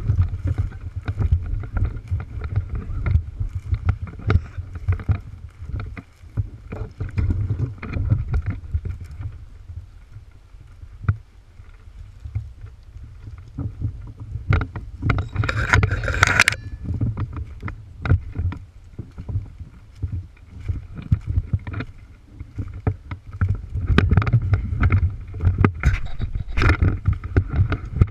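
Wind buffeting the microphone: a low, uneven rumble that rises and falls, with scattered clicks and a louder rush about halfway through.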